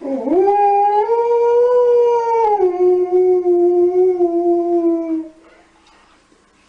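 Siberian husky howling: one long howl that starts by rising in pitch, steps down lower about halfway through and holds there, then stops about five seconds in.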